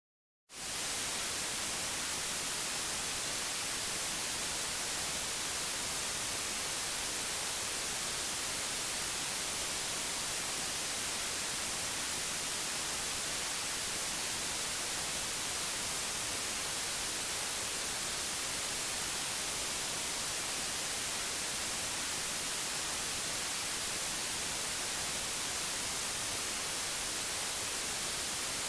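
Television static: a steady, unchanging hiss that starts abruptly about half a second in, brightest in the treble.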